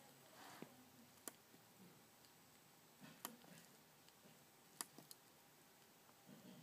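Faint, irregular clicks of keypad buttons being pressed one at a time on a microcontroller kit as a password is keyed in.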